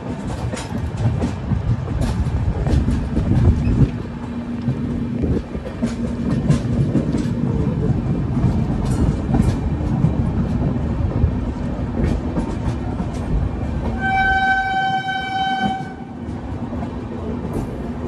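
Passenger train running on the rails, heard from an open coach door: a steady rumble with irregular sharp wheel clacks. A train horn blows once, held for about two seconds, near the end.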